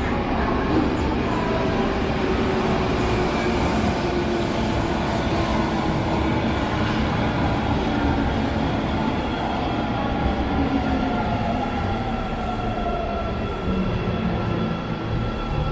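Osaka Metro Midosuji Line subway train running along the platform: a steady rumble of wheels and motors, with a faint whine that falls in pitch over the second half as the train slows.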